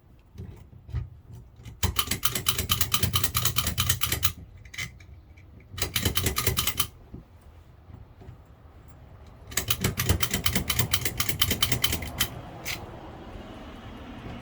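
A locksmith's bump gun (lock pick gun) snapping rapidly in a front door lock's keyway in three bursts of fast, even clicking, the longest near the end, with a few single clicks between. It is being used to jar the lock's sticky pins open.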